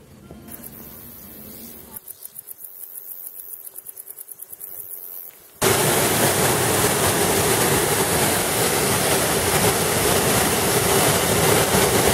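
Waterfall rushing, a loud steady roar of falling water that starts suddenly about halfway through. Before it, a fast rhythmic ticking, about six a second, for a few seconds.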